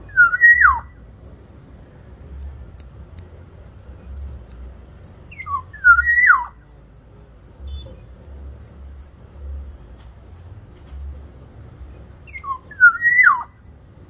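Black-naped oriole giving three loud fluting whistled phrases, about six seconds apart, each a few quick notes that climb and end in a clear downward slur.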